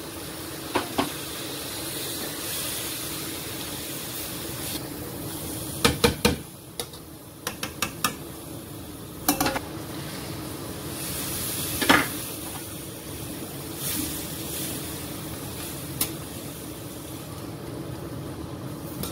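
Boiling water being poured into a hot pan of fried spice paste and vegetables, hissing and sizzling steadily, with a few sharp clinks and knocks of utensils against the pan.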